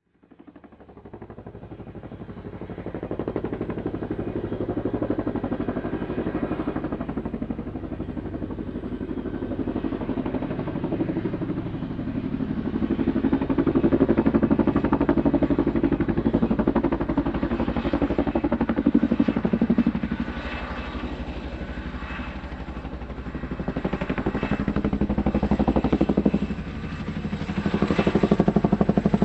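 Helicopter in flight, its rotor blades chopping rapidly. It fades in over the first few seconds, then swells and dips in loudness as it flies.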